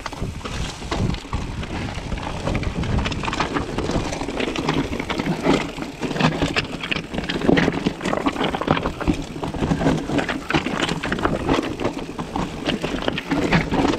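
Mountain bike ridden over rough, rocky ground: a constant clatter and rattle of tyres, chain and frame over stones, with many irregular knocks.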